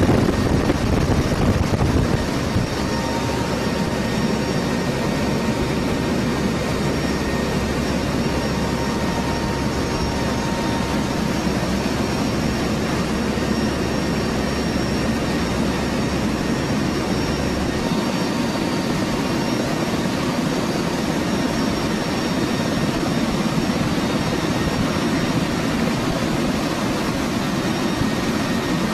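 Steady drone of an HC-130 tanker's turboprop engines and rushing air, heard from inside the aircraft, with a few faint steady whines on top. A deep low hum underneath drops away about 18 seconds in.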